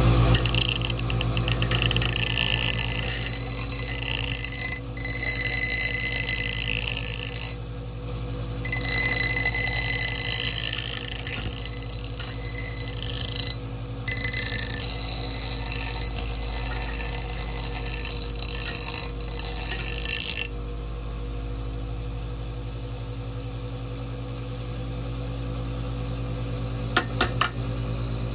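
Electric grinder running with a steady hum while the built-up weld on a small steel garden trowel is ground down, a high scraping ring in several passes broken by short lifts. The grinding stops about two-thirds of the way through and the motor runs on alone, with a few sharp clicks near the end.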